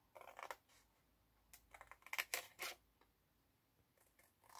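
Scissors cutting through heavyweight paper card in short snips: one near the start, a quick run of several snips about two seconds in, and another near the end.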